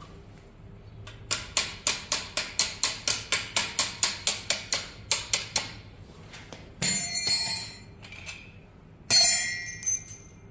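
Hand tools working on metal: a rapid run of sharp clicks, about five a second for some four seconds. Then two metallic clinks that ring on briefly, like a steel tool or part set down on metal.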